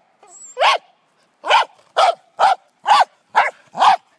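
Corgi barking: seven barks in quick succession, about two a second, starting about half a second in.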